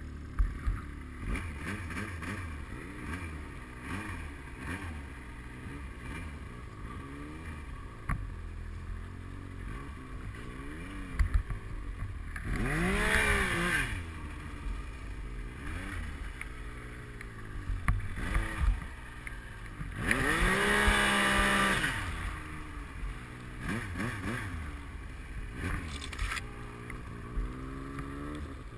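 Yamaha Nytro X-Ride snowmobile's four-stroke three-cylinder engine revving up and down while riding in deep powder snow. Two longer, louder bursts of throttle come about halfway and about two-thirds of the way in.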